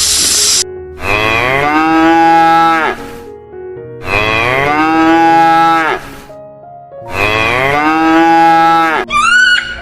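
A cow mooing three times, each moo about two seconds long and evenly spaced a second apart. Near the end a short, higher call rising in pitch begins.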